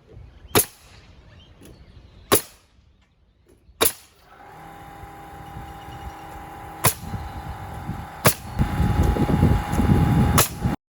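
Pneumatic siding nailer firing single nails, six sharp shots one to three seconds apart. About four seconds in, a Metabo HPT cordless air compressor starts and runs with a steady hum that grows louder near the end.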